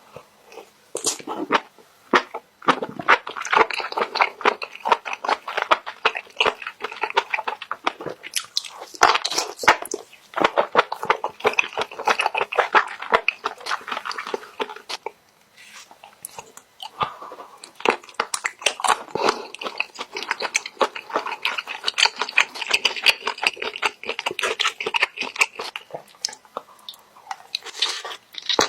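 Close-miked chewing of spicy stir-fried squid: dense wet, clicking mouth sounds in several stretches with brief pauses between bites.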